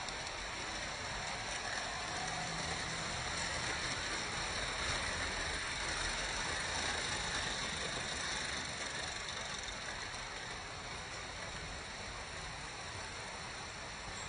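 Vintage Märklin model trains running on metal M-track: a steady rolling hiss and rumble of wheels and small electric motors that swells over the first few seconds, then slowly fades.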